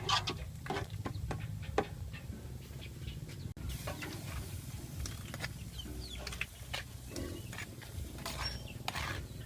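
Chickens clucking here and there, with scattered short clicks and knocks over a low steady hum.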